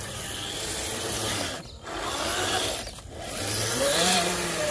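RC scale crawler truck's electric motor and gearbox whirring under throttle as it climbs a dirt slope, with a gritty mechanical grinding, in three bursts with short breaks between them.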